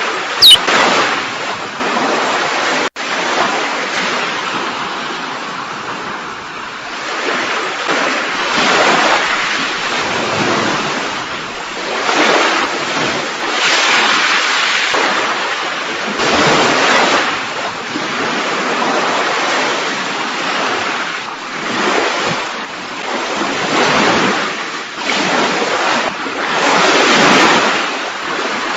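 Recorded sea waves surging, swelling and fading every two to three seconds. Just after the start a brief sharp high whistle falls quickly in pitch, and about three seconds in the sound cuts out for an instant.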